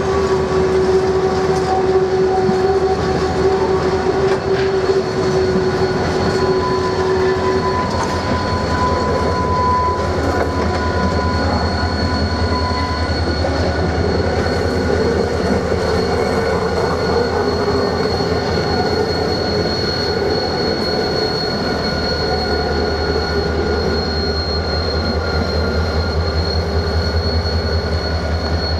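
A slow-moving rake of empty freight wagons squeals steadily as its wheels grind through the yard curves and points, with several high squeal tones; a lower one dies away about a quarter of the way in, while a higher one carries on. Underneath, the diesel engine of a Renfe Class 333 locomotive runs with a low throb that grows louder near the end as the locomotive draws close.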